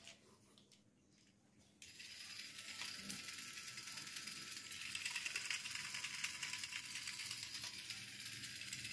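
Battery-powered toy steam locomotive switched on about two seconds in: its small motor and plastic gears whirr steadily with a fast, fine clicking.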